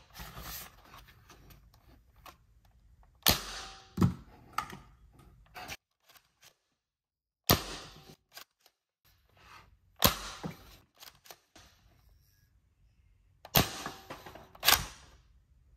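Toy foam dart blaster being primed and fired: sharp plastic clacks and pops, about six loud ones a few seconds apart with fainter handling clicks between.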